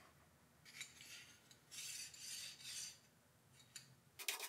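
9-inch Mauser vernier caliper being reassembled: its steel slide scraping along the beam in a few short metal-on-metal strokes. Near the end a fast, even scrubbing starts.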